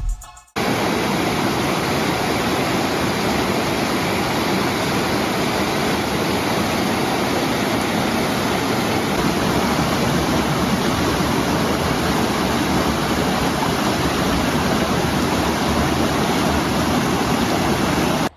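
Steady, even rush of flowing water, starting suddenly about half a second in.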